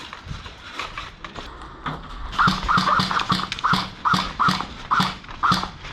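Running footsteps, an even beat of about two to three strides a second that starts about two seconds in.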